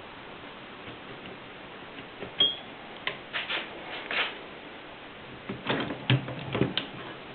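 Mercedes 6 typewriter being typed on: irregular clacks of the typebars striking in two short bursts. There is a brief ring about two and a half seconds in, and some deeper knocks near the end of the second burst.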